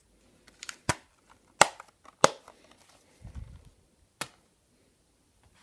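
A metal Blu-ray steelbook case being closed and handled: several sharp clicks and snaps, with a soft low thump about three and a half seconds in.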